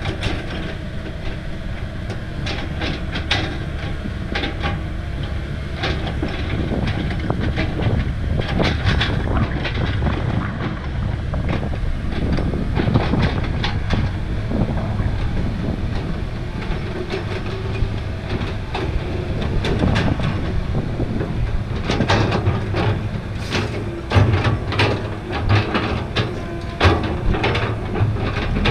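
Heavy diesel earthmoving machinery, an excavator and a six-wheel dump truck, running steadily with a low rumble, overlaid by frequent sharp metallic clanks and rattles that grow busiest in the last several seconds.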